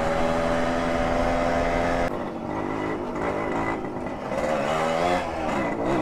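Motorcycle engine running under steady throttle while riding. About two seconds in, the sound drops and eases, and near the end the engine note dips and rises again as the throttle changes.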